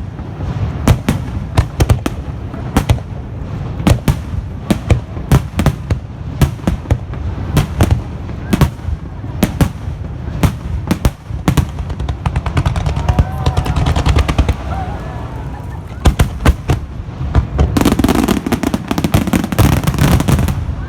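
Fireworks display exploding in rapid, overlapping bangs, several a second. About three seconds before the end the bangs merge into a dense, continuous crackle.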